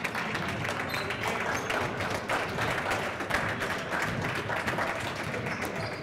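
Spectators applauding, a dense, steady patter of many hands clapping.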